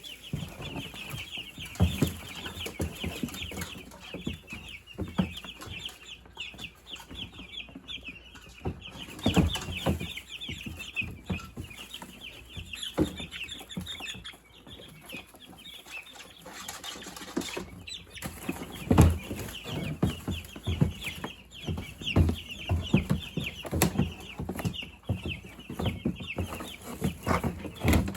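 A flock of young meat chickens peeping constantly, many high chirps overlapping, with irregular knocks and thumps of handling mixed in, more of them in the second half.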